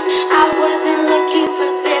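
Instrumental music: a plucked-string accompaniment with held notes under it.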